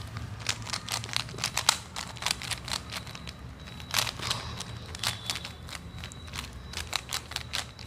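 Rubik's Cube being scrambled: its plastic layers are twisted quickly, giving an irregular run of sharp clicks several times a second.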